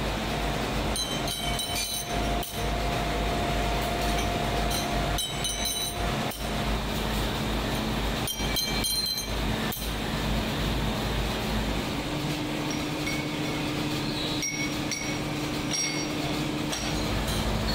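Factory machinery running steadily with a deep hum, broken by scattered sharp metallic clinks and clicks.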